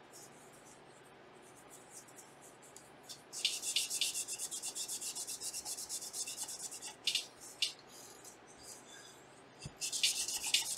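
Paper towel scrubbing back and forth over a graphics card backplate to wipe off old thermal pad residue: quick, hissy rubbing strokes, several a second. They start about three seconds in, pause for a couple of seconds near the end, then start again.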